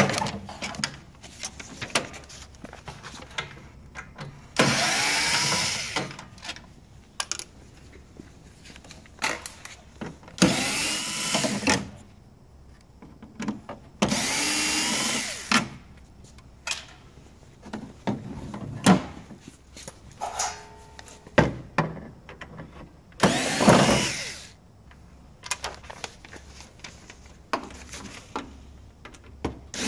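Craftsman cordless drill/driver running in several short bursts of one to two seconds each, on screws in the printer's panels. Its whine rises in pitch as each burst starts, with clicks and knocks of handling in between.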